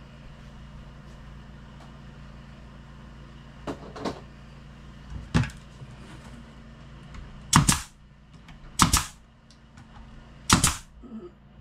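Pneumatic nail gun firing three times into a wooden cabinet frame, each shot a sharp crack, about a second and a half apart. A few lighter clicks and knocks of handling come before the shots.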